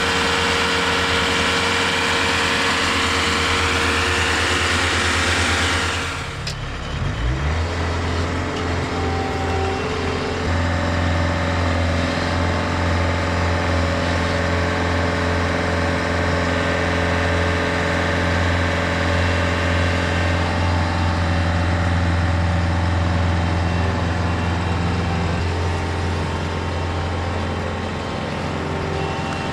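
Engine of a TimberKing 2520 portable sawmill running steadily. For the first six seconds a loud bright hiss rides over the engine, and it drops away abruptly about six seconds in, leaving the engine's even drone.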